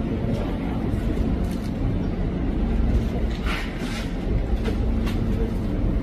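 Steady low engine rumble that runs on without a break.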